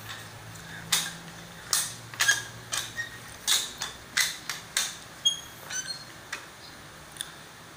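A flat mop being pushed over a tiled floor: a string of sharp, irregular clacks and knocks, with a few short squeaks a little past the middle, fading out near the end.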